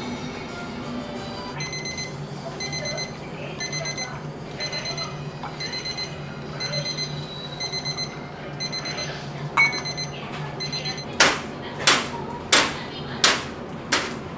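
Electronic kitchen timer alarm going off, a rapid beep-beep-beep repeating about twice a second for roughly nine seconds. Then come five sharp knocks about two-thirds of a second apart.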